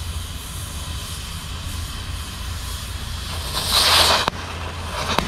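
Oxy-acetylene cutting torch flame hissing steadily while it preheats a broken drill bit stuck in stainless steel to cutting temperature. A little under four seconds in, a louder rush of hiss comes as the cutting oxygen hits and the bit starts to wash out, followed by a few sharp crackles of sparks.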